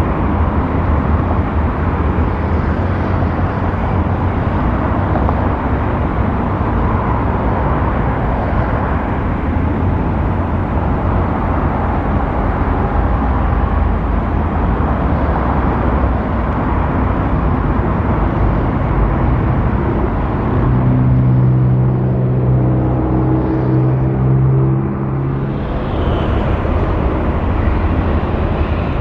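Steady engine rumble over a constant noisy roar, with a steady pitched drone standing out for about five seconds near the end.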